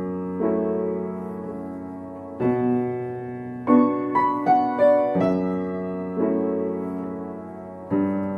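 Solo piano playing a slow, gentle piece: chords struck every second or two and left to ring and fade, with a short run of falling single notes about four seconds in.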